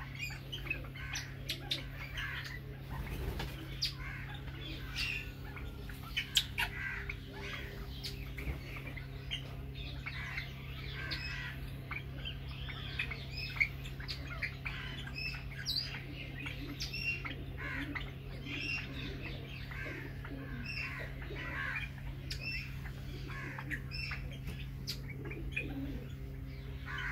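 Many birds chirping and calling in short, overlapping notes, over a steady low hum, with a few sharp clicks.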